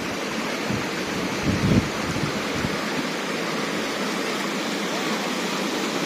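Steady rushing of a jungle stream and its small waterfall spilling over rocks, running full. About one and a half seconds in there is a brief low rumble on the microphone.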